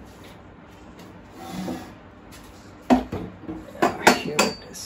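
The plastic top of a folding laptop table being tilted on its steel frame: a soft rub, then a sharp click about three seconds in and a quick run of clicks and knocks near the end as the top is moved between its angle positions.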